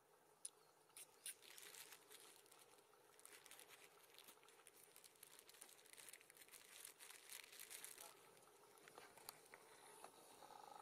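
Near silence, with faint crackling and a few soft clicks.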